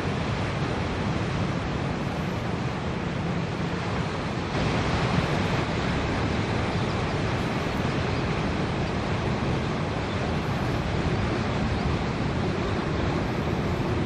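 Steady rushing of water, an even noise with no distinct calls standing out; it gets a little louder about four and a half seconds in.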